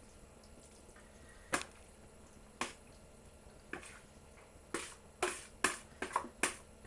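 A spoon knocking against a mixing bowl and baking dish while the chicken pasta bake mixture is spooned in: a few separate knocks, then a quicker run of them in the second half.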